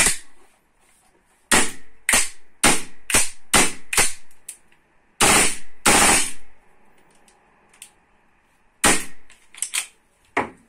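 Golden Eagle AR-15 gas blowback airsoft rifle firing single shots, each a sharp crack with the bolt's blowback: a string of shots about half a second apart, two longer blasts near the middle, and another quick string near the end.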